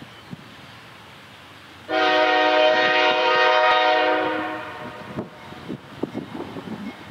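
Diesel freight locomotive's multi-chime air horn sounding one long blast of about two and a half seconds, starting about two seconds in. Afterwards, the low rumble of the approaching train with scattered knocks.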